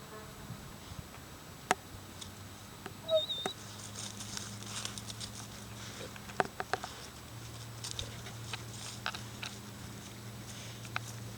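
A dog handling a rock on the ground: scattered sharp clicks and knocks of the rock, with scratchy scraping and pawing sounds.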